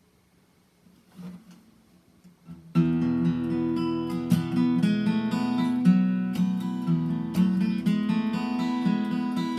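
Steel-string acoustic guitar strummed, starting suddenly about three seconds in: steady rhythmic chord strumming, the instrumental introduction to a folk song.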